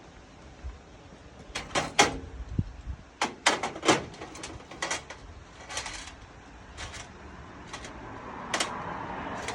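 Metal door hardware (a hinge set and latches) being handled, giving a run of sharp clicks and knocks, a few of them loud.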